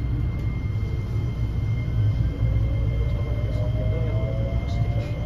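Inside a JR West 321 series electric motor car pulling away: the Mitsubishi IGBT VVVF inverter and traction motors whine, the pitch rising steadily as the train gathers speed, over the low rumble of the running gear. A faint steady high tone runs beneath it.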